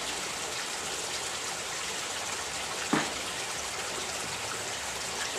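Steady rushing background noise like running water, with one short tap about three seconds in.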